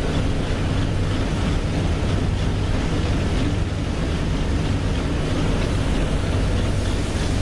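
Textile recycling machinery running steadily: a constant mechanical drone with a low hum under an even rushing noise.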